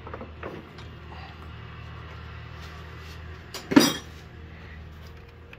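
Light metallic clinks of hand tools and parts being handled, with one loud, sharp clank a little under four seconds in, over a steady low hum.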